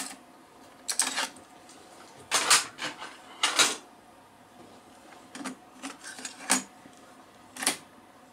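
Technics RS-M51 cassette deck's transport keys being pressed and its mechanism engaging: about ten sharp mechanical clicks and clunks, unevenly spaced, some in quick clusters.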